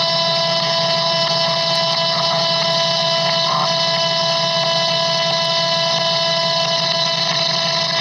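Steady electronic static from a recording being played back on a handheld device: a constant hiss with a low hum and two held whistling tones.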